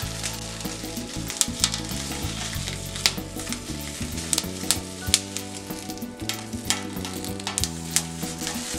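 Whole tomatoes and jalapeños sizzling as they roast on a hot foil-lined comal, with irregular sharp pops and crackles while they are turned by hand.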